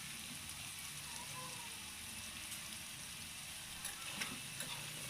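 Food frying in a pan with a steady sizzle, with a few light clicks about four seconds in.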